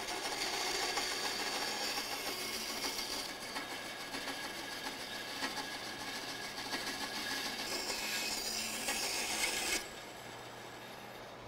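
Bandsaw running and cutting through a thin strip of hardwood, shaping the contour of a wooden spoon handle, with a steady saw noise over a low motor hum. The cutting noise stops sharply about ten seconds in, leaving a quieter steady hum.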